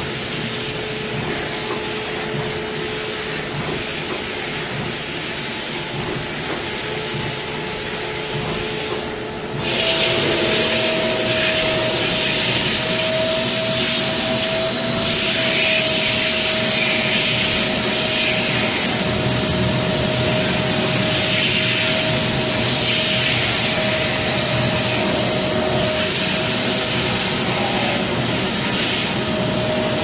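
Kärcher SGV 8/5 steam vacuum cleaner running with a steady motor whine. About ten seconds in, the whine steps up in pitch and the machine gets louder, with a hiss that swells and fades.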